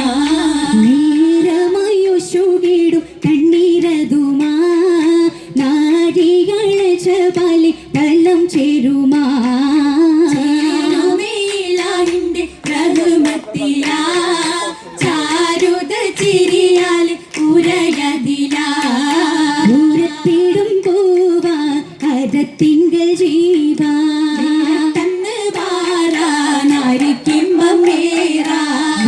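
Voices singing a Mappila song for Oppana, the melody running on without a break, with sharp hand claps keeping the beat.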